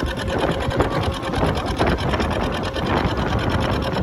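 Small boat's engine running steadily with a fast, even putter, heard from on board.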